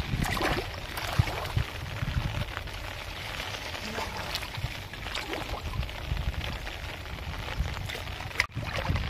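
Water sloshing and dripping with small irregular splashes as a long gill net is pulled in hand over hand through shallow water, over a low rumble of wind on the microphone.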